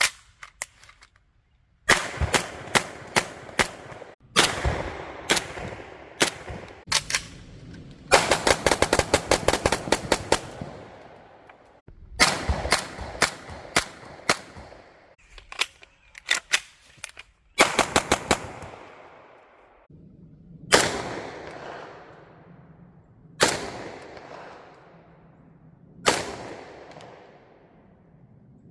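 Gunfire from an AP5 (an MP5-style gun) and a CZ Scorpion: quick strings of shots, the longest a run of about a dozen starting around eight seconds in, then widely spaced single shots near the end, each echoing away over a second or two.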